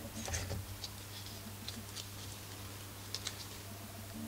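Scattered light clicks and taps of a plastic recoil starter pulley being handled and seated on a small two-stroke engine's housing, a few quick ones about half a second in and a pair about three seconds in, over a faint steady low hum.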